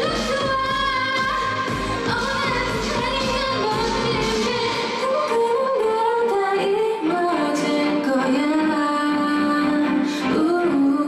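K-pop girl-group dance song with a woman singing into a microphone over the backing track. About five seconds in the beat and bass drop away, leaving a long held sung note over the thinner accompaniment.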